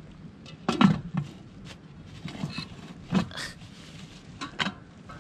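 Cast-iron Dutch oven lid being lowered and settled onto the pot with a metal lid lifter: a series of irregular metal clanks and scrapes, the loudest about a second in.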